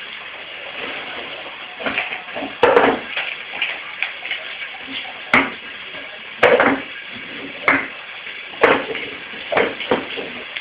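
A beagle puppy's food bowl knocking and clattering on a ceramic tile floor as the puppy pushes it around, in irregular sharp knocks a second or so apart, the puppy after more food from its emptied bowl.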